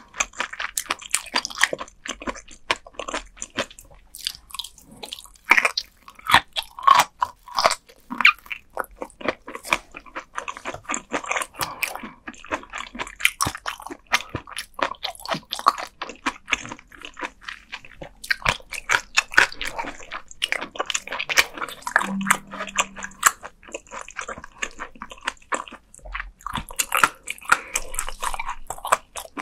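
Close-miked chewing of raw gizzard shad eaten bone-in: rapid, crisp crunches of the small soft bones, several a second, mixed with wet mouth sounds.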